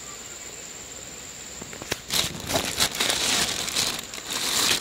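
A faint, steady high insect drone, then about two seconds in a click and a loud, irregular crinkling and rustling, like something being handled close to the microphone.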